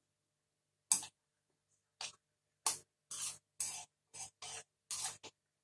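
Metal spoon scraping and knocking against a coated pan while stirring thick curry: a run of about eight short scrapes, the first about a second in, then coming faster in the second half.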